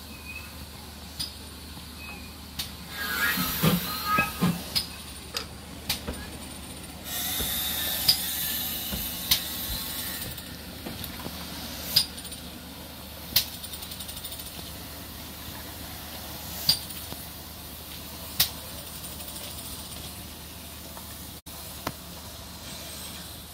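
Steam locomotives in a station with steam hissing, loudest for about three seconds starting some seven seconds in. The GWR Small Prairie tank engine moves slowly along the track, with scattered sharp metallic clicks every second or two and a louder jumble of sound three to five seconds in.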